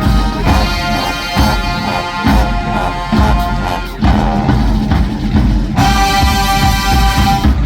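High school marching band playing: brass over drums, closing on a long held chord about six seconds in that cuts off sharply near the end.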